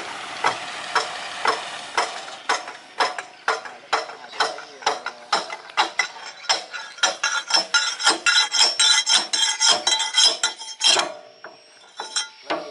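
Rapid metallic clicking of a hand tool working on an excavator's bucket hydraulic cylinder, metal on metal with a slight ring. The clicks come about two a second at first, then quicker and louder, about four or five a second, and stop near the end.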